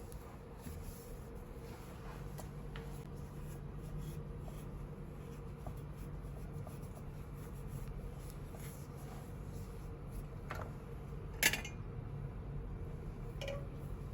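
Quiet handling of a brass samovar during cleaning: soft rubbing with scattered small clicks, and one sharper metallic clink about eleven and a half seconds in, over a steady low hum.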